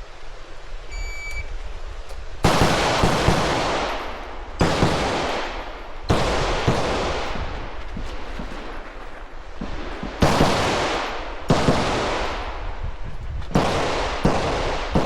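A shot timer's start beep sounds about a second in. Then a semi-automatic rifle fires a string of shots in quick pairs and groups, with short pauses between target arrays, each shot trailing off in an echo.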